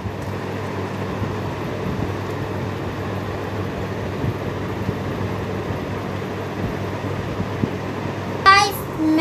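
Steady low hum and hiss of background room noise, with no distinct handling sounds; a voice starts briefly near the end.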